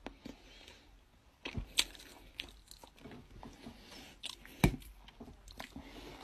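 Close-up chewing: faint crunching and mouth clicks, with two sharper clicks about two seconds and four and a half seconds in.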